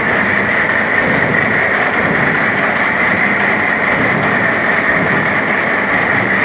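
Planer milling machine's milling head running, a loud, continuous, even mechanical noise with no change in speed.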